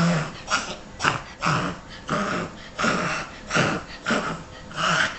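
Maltese dog reverse sneezing: a rapid run of forceful breaths pulled in through the nose, repeating about twice a second.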